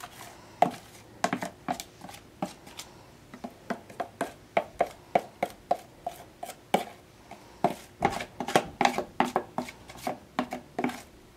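Irregular light clicks and knocks of a utensil against a plastic container as the last of a melted chocolate and peanut butter mixture is scraped out onto Chex cereal in a plastic mixing bowl, about two or three knocks a second.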